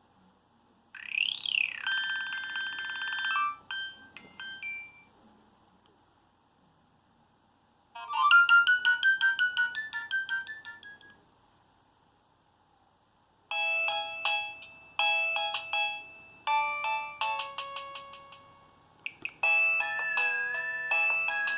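Nokia 6225 mobile phone playing its preloaded ringtones one after another: three short electronic melodies of several notes at once, with a pause of a few seconds between them. The first opens with a quick rising and falling sweep; the last is still playing at the end.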